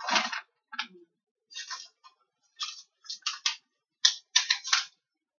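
Hand-held spray bottle spritzing water, about ten short hissing squirts in irregular quick succession, some in quick pairs. It is misting freshly sown seeds in seed-starting mix.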